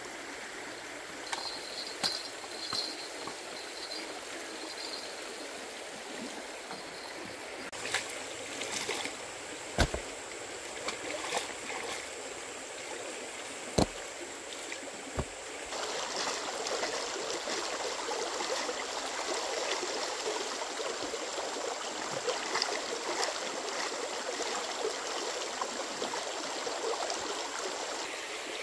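Steady rush of running water, like a stream, with a few sharp knocks, the loudest about ten and fourteen seconds in. The water grows louder about sixteen seconds in.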